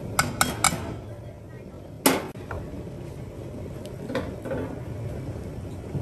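Three quick sharp clicks, then a single louder knock about two seconds in, with a couple of fainter clicks later: hard objects being handled and knocked together, over a low steady hum.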